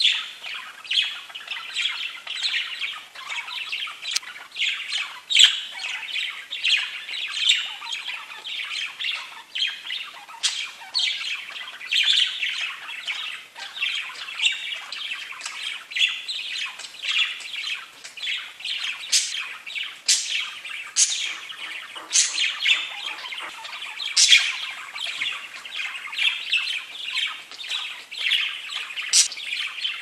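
Several pet budgerigars chattering and warbling continuously, with sharp high-pitched chirps and squawks cutting through now and then, more often in the second half.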